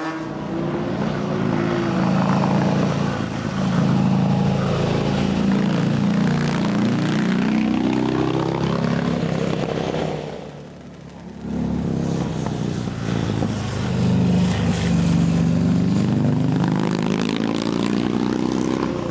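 ARCH KRGT-1s motorcycle's 2-litre V-twin four-stroke engine pulling hard up through the gears, its pitch repeatedly climbing and then dropping at each shift. The sound fades briefly about ten seconds in, then comes back loud as the bike accelerates again.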